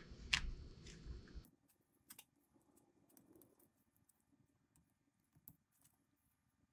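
Faint, scattered clicks and taps from a steel pick and gloved hands working a new seal into a groove on a hydraulic swivel joint spool, with one sharper click about half a second in. A low background hiss cuts off suddenly after about a second and a half.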